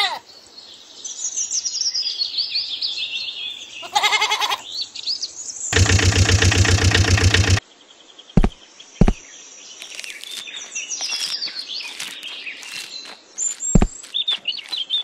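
Goats bleating: a short bleat about four seconds in, then a long, loud bleat, over birds chirping. A few sharp knocks come in the second half.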